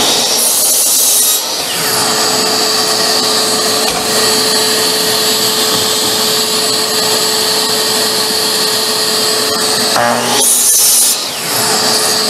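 DeWalt compound miter saw cutting cedar boards, with a harsh cut about a second in and another about ten and a half seconds in. A steady running noise with a constant hum continues between the cuts.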